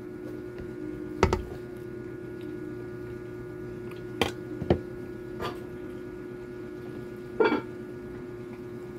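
A steady electrical hum with a few scattered sharp clicks and knocks: one about a second in, a pair around four to five seconds in, and a short louder sound about seven and a half seconds in.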